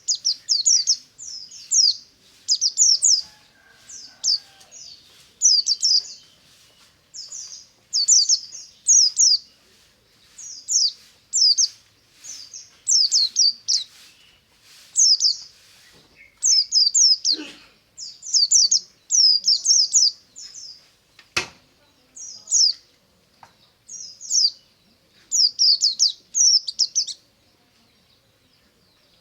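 White-eye (pleci) singing continuously: short bursts of quick, high, falling chirps repeated about once or twice a second, with two brief soft knocks partway through.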